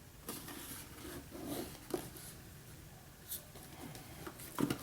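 Quiet rustling and scraping of a cardboard product box and its packaging being handled, with a few light clicks and taps.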